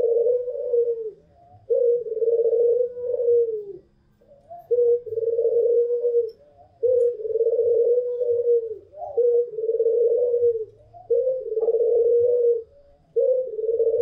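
White puter pelung doves (domestic ringneck doves) cooing: a long coo repeated about seven times, each lasting one to two seconds, with short breaks between.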